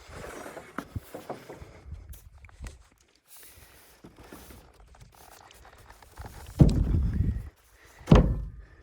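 Two heavy thuds near the end: hammer blows on a wooden beater board, driving a tongue-and-groove subfloor sheathing panel home. Before them, lighter knocks and shuffling on the sheathing.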